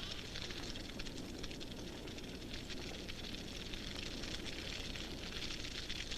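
Grass fire burning, with dense fast crackling over a low steady rumble.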